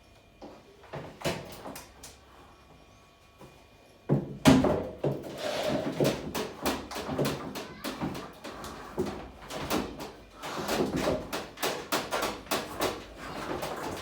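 Knocks and clatter of washing-machine parts being handled and worked on by hand: a few separate knocks, then from about four seconds in a dense run of repeated knocking and rattling.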